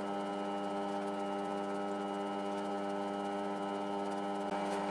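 Foreman TB1835 mini metal lathe running at low speed with the leadscrew engaged and turning, giving a steady hum made of several held tones.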